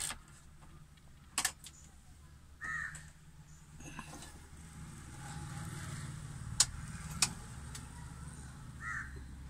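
Several sharp clicks inside a car's cabin, the two loudest about half a second apart past the middle, over a low steady rumble. Two short bird calls come from outside, one early and one near the end.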